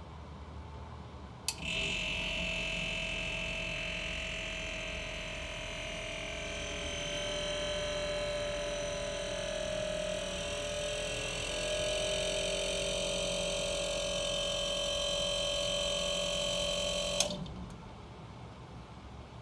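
Arçelik 5233 refrigerator's compressor switching on with a click about a second and a half in. It runs with a steady whine over a hiss for about sixteen seconds, then cuts off with a click near the end.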